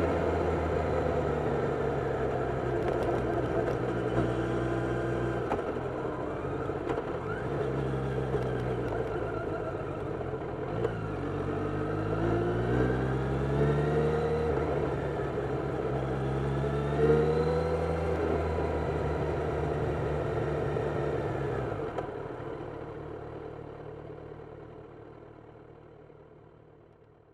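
Kawasaki inline-four sport-touring motorcycle engine heard on board while riding: a steady engine note, then two pulls where the pitch rises and drops back as the rider accelerates and shifts up. The sound then holds steady and fades away over the last few seconds.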